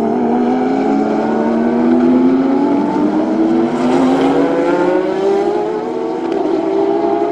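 A pack of GT2 race cars, mostly Porsche 911 GT3 RSRs, accelerating hard together. Several engines overlap, each rising in pitch through the gears.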